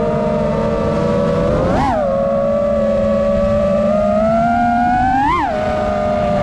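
FPV quadcopter's motors and propellers whining steadily, with a sharp rise and fall in pitch about two seconds in and again near the end as the throttle is punched.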